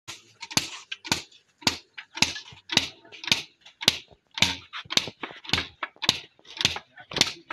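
Long thin sticks beating a heap of loose dyed fibre to loosen and fluff it: a sharp whack about twice a second, each followed by a short swish, with some lighter strokes in between.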